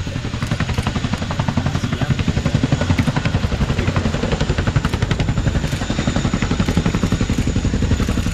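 Boeing CH-47 Chinook's tandem rotors chopping in rapid, even beats, with a thin high turbine whine over them, as the helicopter taxis backwards on its rear wheels with its nose raised. The chopping grows a little louder about two seconds in.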